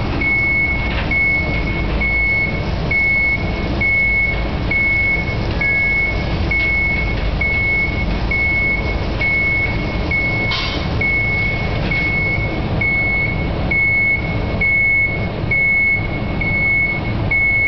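Warning beeper sounding a single high beep about once a second while the oven's carriage drives out of the sublimation oven, over the low rumble of the moving trolley. One sharp knock about ten seconds in.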